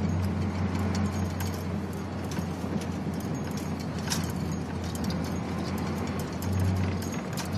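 Car interior while driving on a snow-covered road: a steady low engine and road drone, with irregular light clicks and knocks throughout.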